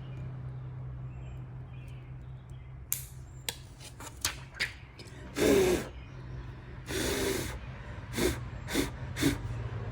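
A few light clicks, then five short puffs of blown air, blowing dust off the phone screen in place of compressed air. A low steady hum runs underneath.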